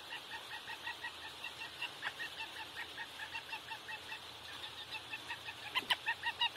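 Young guineafowl peeping over and over in a quick string of short calls, getting louder near the end.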